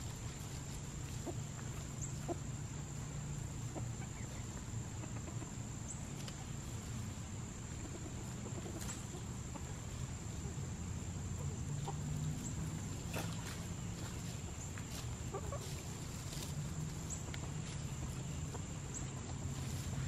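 Silkie chickens clucking as they forage, with scattered short scratches and rustles in dry leaf litter. A steady low hum and a thin, steady high whine run underneath.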